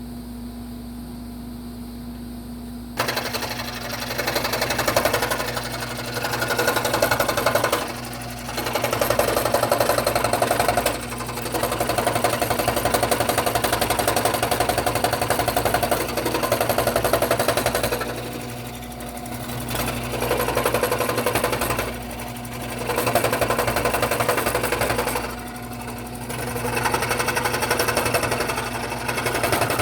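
Scroll saw running, its blade cutting into wood from about three seconds in, the cutting sound swelling and easing several times as the cut goes on.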